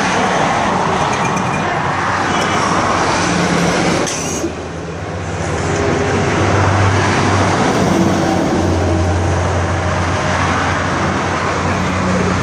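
Road traffic noise: vehicles passing, with one engine's low hum standing out for a few seconds in the second half.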